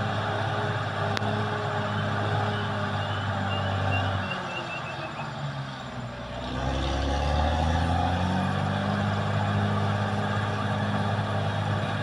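Caterpillar D6R XL bulldozer's diesel engine running. Its pitch drops about four seconds in and climbs back up a couple of seconds later. A quick run of short high chirps comes in the middle.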